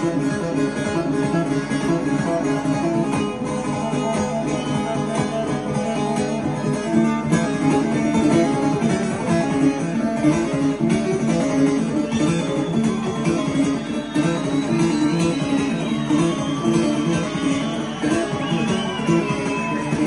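Bağlama (long-necked Turkish saz) played solo through a stage sound system: a steady plucked melody with no voice, the instrumental opening of a folk song.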